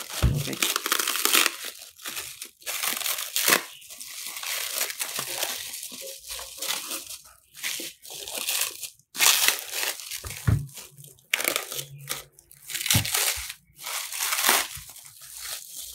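Black plastic bag and plastic stretch wrap crinkling and tearing as they are pulled off by hand, in irregular rustling bursts, with a couple of dull knocks from handling the stand.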